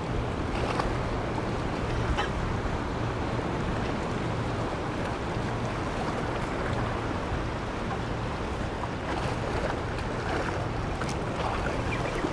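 Steady wash of ocean waves sloshing among the rocks of a jetty, with some wind on the microphone.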